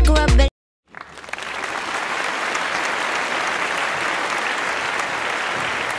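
Music stops abruptly about half a second in. After a brief silence, an audience applauds, building within a second and then holding steady.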